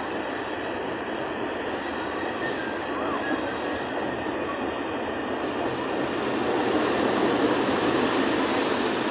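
Freight train wagons rolling past close by: a steady noise of steel wheels running on the rails, growing louder about six seconds in.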